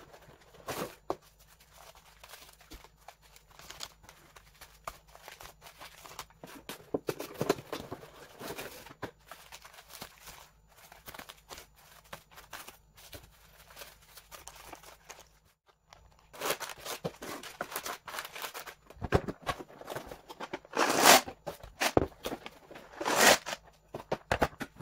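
Groceries and packaging being handled: scattered clicks, light knocks and rustling, becoming louder and busier with crinkling and tearing in the last third.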